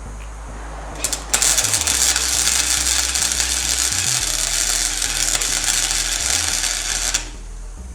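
Electric welding arc crackling and sizzling for about six seconds, after a short sputter as it strikes about a second in, then stopping abruptly: a nut being welded onto a broken exhaust stud to extract it.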